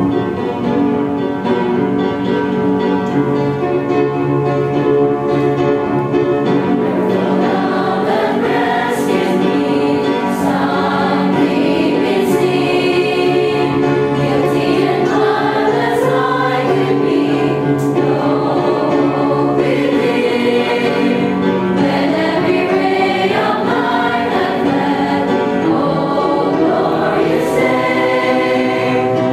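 A choir of girls and young women singing a gospel hymn together.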